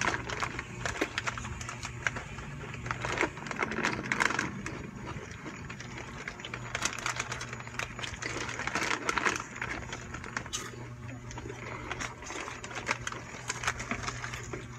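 Snack-eating sounds: irregular crunching and crinkling of a snack wrapper, over a steady low hum.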